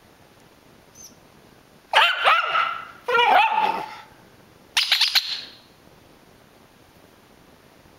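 Rat terrier barking in three loud outbursts: two drawn-out barks with falling pitch about two and three seconds in, then a shorter, higher one near five seconds. These are unsettled barks at a squeaker toy being squeezed.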